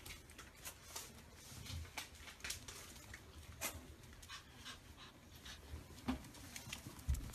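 Shih Tzu puppy panting and scrabbling about, its claws clicking on a wooden floor in many quick, irregular ticks.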